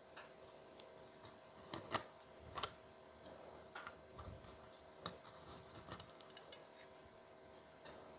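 Chef's knife cutting broccoli florets on a plastic cutting board: scattered faint taps and clicks of the blade against the board, the loudest about two seconds in, over a faint steady hum.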